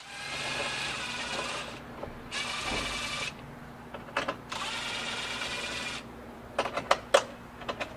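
Power drill running in three short bursts of about a second each, followed by several sharp clicks near the end.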